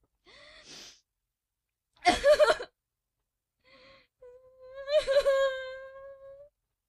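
A string of separate cartoon girl-character vocal sound effects cut between silence: a soft breathy gasp, a loud short cry about two seconds in, then a long held high-pitched "oooh" wail that starts about four seconds in.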